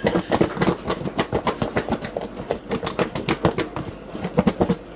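Chicken wings being shaken in a lidded plastic food container to coat them in Parmesan garlic sauce: a fast, even knocking and rattling, several strokes a second.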